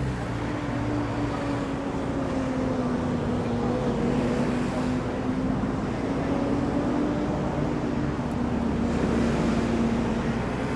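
Steady drone of a vehicle engine over city street noise, its hum drifting slowly lower in pitch.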